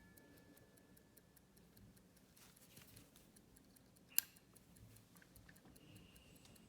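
Swiss quarter-repeater pocket watch ticking faintly with rapid, even ticks, several a second. The last ring of its repeater chime fades out in the first second, and there is a single sharper click about four seconds in.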